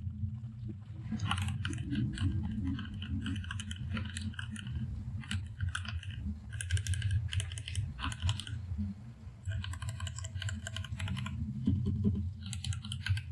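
Typing on a mechanical keyboard with Fantasy Virus switches: quick runs of key clicks separated by short pauses, over a steady low hum.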